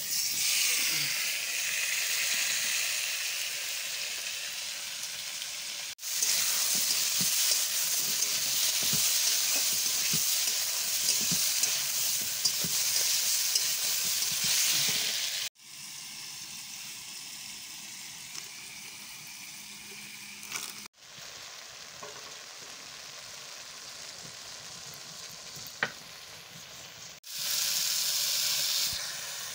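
Tomato pieces tipped into hot oil in a steel kadai, sizzling loudly, with a metal spatula stirring and scraping the pan. The sizzle dies down in the middle and flares up again near the end as more is added to the pan. It cuts off abruptly several times.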